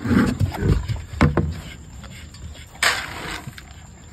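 Dry kibble poured from a plastic scoop into a plastic dog bowl: a short rattling rush about three seconds in. Before it come low animal noises from the dogs and a couple of sharp knocks.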